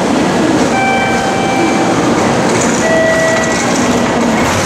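Shinkansen bullet train moving alongside a station platform: a loud, steady rushing rumble, with a brief whine about a second in and another about three seconds in.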